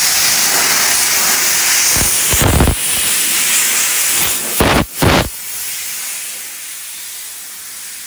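Compressed-air dust removal gun blowing: a loud, steady hiss of air, with two brief heavier gusts about two and five seconds in. After about five seconds the blast stops and only a faint steady hiss remains.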